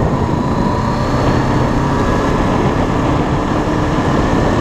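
Red sport-style street motorcycle riding steadily along a gravel road: a steady engine drone under heavy wind noise on the microphone.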